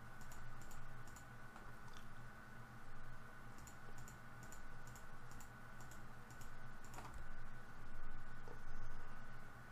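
Irregular clicks of a computer mouse and keyboard as list items are Ctrl-clicked to select them, over a faint steady electrical hum.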